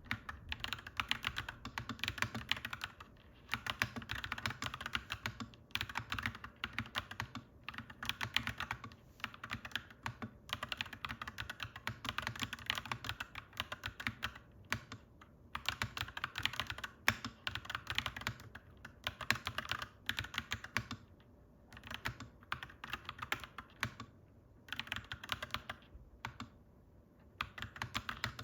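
Mechanical keyboard typing: fast runs of clacky keystrokes, broken by short pauses of a second or less every few seconds.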